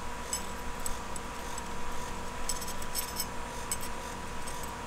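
Light metallic clicks and scrapes of a small steel pick working thin gaskets into place on a pre-combustion chamber in a Yanmar 2GM diesel cylinder head. The clicks cluster a little past the middle.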